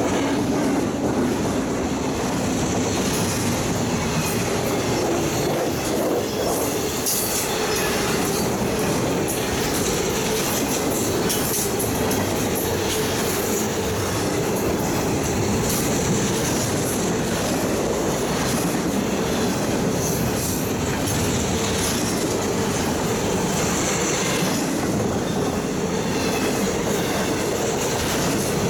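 Double-stack intermodal freight train's well cars rolling past: a steady rumble of steel wheels on the rails, with the clicking of wheels over rail joints.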